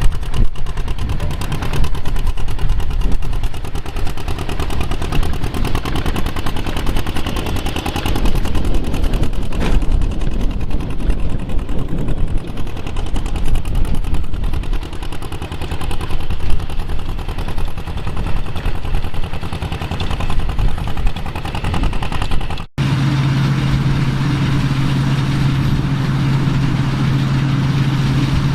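John Deere 2140 tractor's diesel engine running with an uneven, clattery sound that swells and fades. About three-quarters of the way in, the sound cuts off abruptly and gives way to a steady, even engine note.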